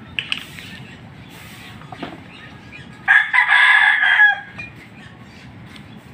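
A rooster crows once, about three seconds in, for a little over a second.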